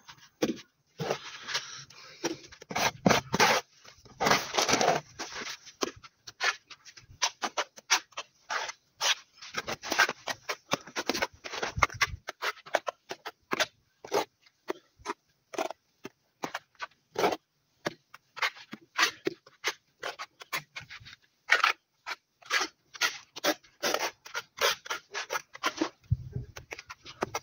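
A mason's trowel scraping and slapping cement mortar onto a rendered wall in many short, irregular strokes, laying dabs and then spreading them across the surface.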